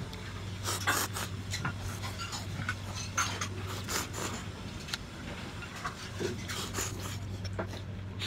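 Chopsticks clicking and scraping against a ceramic ramen bowl as thick noodles are stirred and lifted, in scattered short clicks, over a steady low hum.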